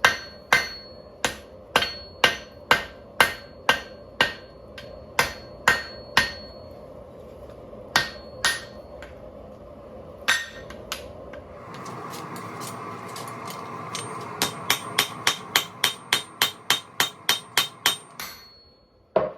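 Blacksmith's hammer striking hot steel on an anvil, about two blows a second with a faint ring after some of them. The blows then slow to a few scattered strikes, and near the end come in a faster run of quicker blows, all over a steady background hiss.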